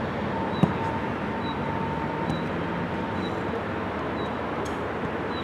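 Steady outdoor noise with wind on the microphone, and one sharp thump of a football being struck about half a second in.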